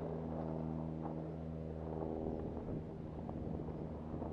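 A steady low hum with evenly spaced overtones, running unchanged throughout.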